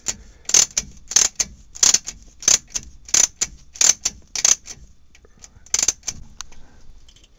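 Wrench working a long bolt on a Facel-Vega front spring seat, giving a sharp metallic click about every two-thirds of a second, then a few sparser clicks near the end. The bolt is being tightened to draw the spring seat up and compress the coil spring into the A-arm.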